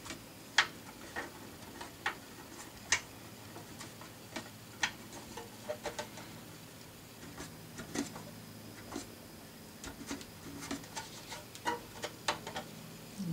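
Scattered light clicks and taps, irregular and a second or so apart, from small screws, a small screwdriver and plastic model-car frame parts being handled and fitted.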